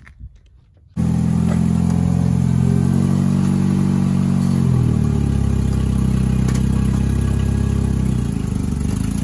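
1999 Ford Escort's four-cylinder engine running, coming in abruptly about a second in at a raised idle; its speed drops about four to five seconds in as it settles to a lower idle.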